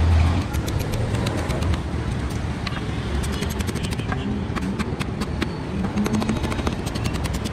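Thin steel transformer laminations clicking and clinking as they are handled and fitted together by hand, many small irregular clicks over a steady low rumble.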